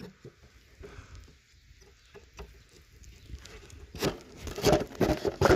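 Handling noises from working on a bird feeder: faint clicks and rustling, then a burst of louder scraping and knocking near the end.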